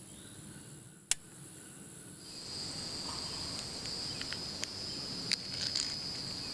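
Insects droning in a steady, high, even chorus that grows louder and shifts to a lower pitch about two seconds in. There is a sharp click about a second in and a few light clicks later.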